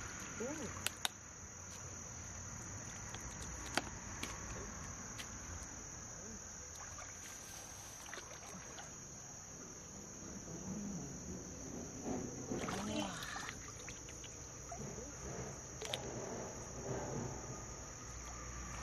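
A steady, high-pitched drone of insects, with water sloshing and splashing as someone wades through shallow river water. There are a few sharp clicks in the first few seconds.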